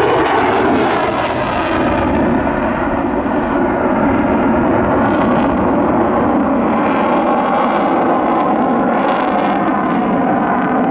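F-35 fighter jet in a display pass with its afterburner lit, its engine making loud, continuous jet noise. The hiss swells about a second in and again later in the pass.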